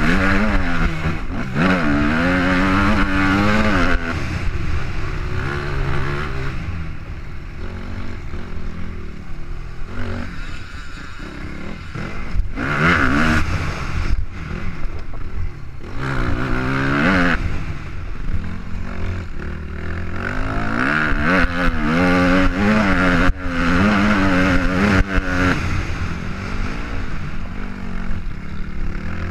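Off-road dirt bike engine ridden hard, its pitch rising as it revs out and dropping back again and again through gear changes and throttle cuts. Sharp knocks from the rough ground run through it.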